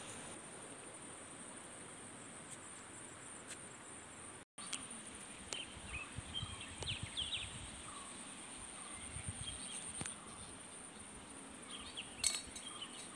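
Insects trilling in a steady, high-pitched buzz, with a few faint bird chirps and light clicks; the sound drops out for a moment about four and a half seconds in.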